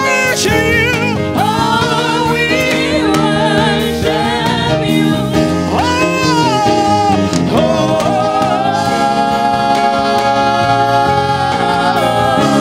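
Live gospel worship music: a singer's voice wavers with vibrato over sustained instrumental accompaniment, then holds one long note through the second half.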